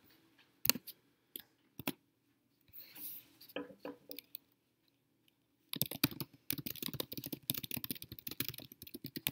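A few separate clicks in the first two seconds, then rapid typing on a computer keyboard from about six seconds in.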